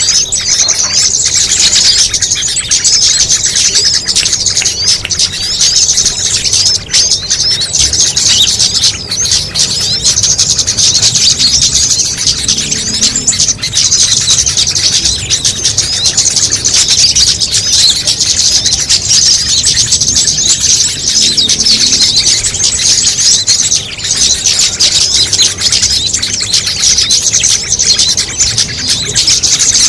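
A dense, unbroken chorus of high chirps and twitters from many small songbirds layered together: a mixed-species bird-lure (pikat) recording.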